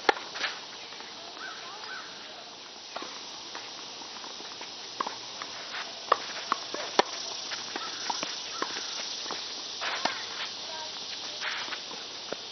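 A tennis rally: sharp pocks of racquets striking the ball, about one to two seconds apart, with players' footsteps on the court, over a steady outdoor hiss.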